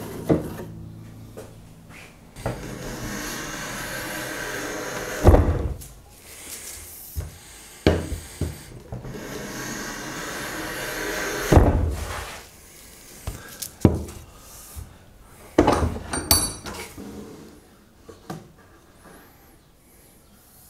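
A hand plane taking two long strokes along a board's edge, each a few seconds of rasping hiss that ends in a knock. Wooden knocks follow, with a brief metallic ring in the middle of them.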